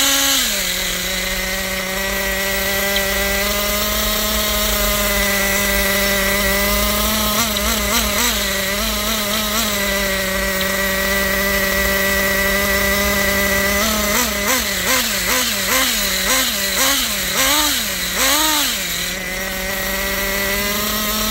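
Nitro glow engine of a Kyosho Inferno Neo ST 3.0 RTR truggy idling steadily, with a few light throttle blips about a third of the way in and a string of quick rev-ups and drops near the end.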